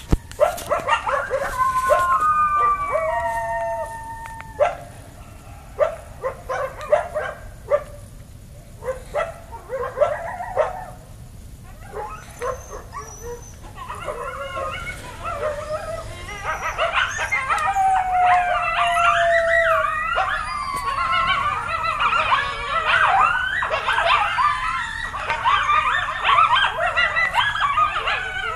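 Coyotes and wolves howling and yipping. A few long gliding howls open it, then come scattered short yips and barks. From about halfway, many wavering howls and yips overlap in a dense group chorus.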